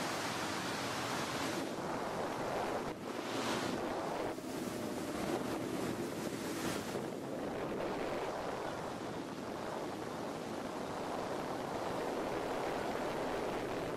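Wind rushing over the microphone and water spray hissing on board a boat running at high speed across open sea, with two louder surges about three and seven seconds in.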